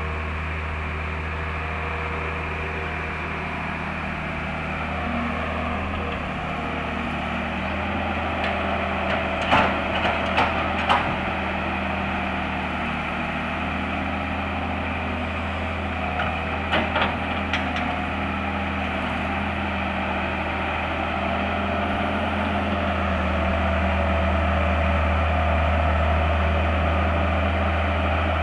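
Mitsubishi MS120 hydraulic excavator's diesel engine running steadily while digging out a drainage ditch, growing louder about three-quarters of the way through. Two brief clusters of sharp knocks come about ten and seventeen seconds in.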